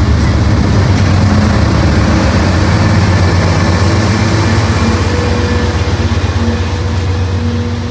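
Diesel locomotive engine running loud and close as a train passes, with a deep, fast pulsing throb, easing off slightly near the end. A faint steady tone joins about five seconds in.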